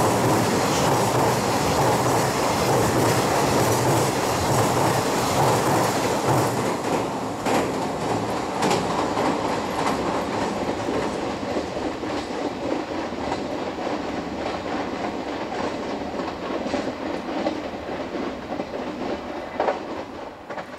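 Container freight train running across a railway bridge, its last wagons passing and the rumble fading steadily as it pulls away, with a few separate sharp clicks along the way.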